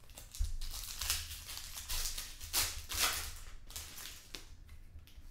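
Plastic trading-card pack wrapper being torn open and crinkled by hand, with cards sliding out: a string of rustling swishes and crackles that thins out near the end.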